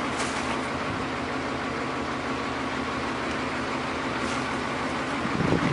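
Chevy P30 step van's 5.7-litre V8 idling steadily, with a short low knock near the end.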